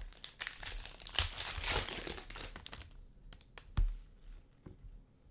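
Foil trading-card pack wrapper crinkling as it is torn open and handled, for about three seconds, followed by a soft thud about four seconds in.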